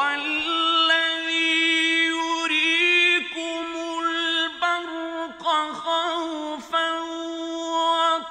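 A male reciter chanting the Qur'an in the melodic mujawwad style: one long drawn-out vocal phrase held on a steady note with wavering ornaments, broken by a few short breaths or pauses.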